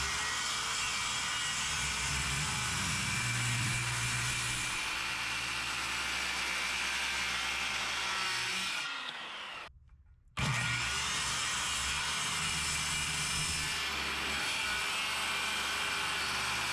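Electric power saw cutting wood in two long passes, the motor starting abruptly each time and winding down with a falling whine, with a short stop between the cuts.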